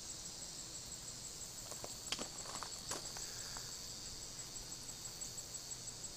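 Steady, high-pitched insect chorus with a fast, regular pulse, and a few faint clicks about two and three seconds in.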